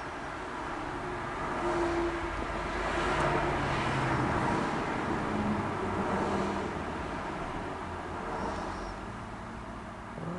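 A motor vehicle passing at a distance, its engine and road noise swelling over several seconds and then fading.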